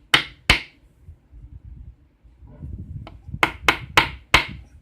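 Sharp knocks, two about half a second apart at the start, then four more in quick succession near the end: a pin-tumbler lock being tapped to shake out a pin stuck in its chamber.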